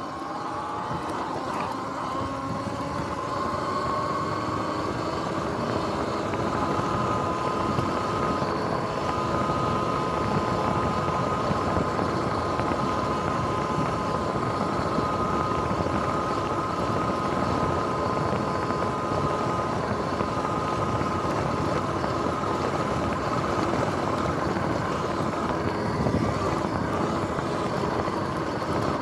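Sur-Ron electric dirt bike's motor whine rising in pitch over the first couple of seconds as it accelerates, then holding a steady whine at cruising speed over a constant rush of wind and tyre noise.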